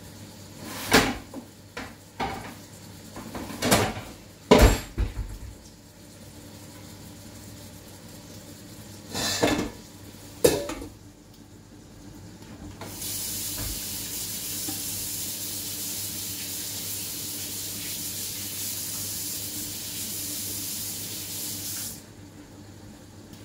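Several knocks and clatters of pots and kitchen utensils, then a kitchen tap running water into the sink for about nine seconds, stopping suddenly near the end.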